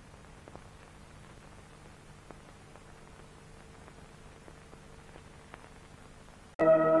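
Soft hiss of an old film soundtrack with a faint steady hum and a few faint clicks. About six and a half seconds in, slow music with sustained chords starts suddenly and loudly.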